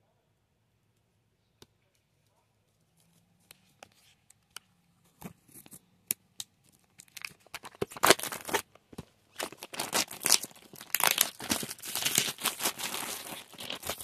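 Plastic shrink-wrap on a DVD box set being punctured with a pen and torn off by hand: a few scattered clicks at first, then dense crinkling and tearing from about halfway through.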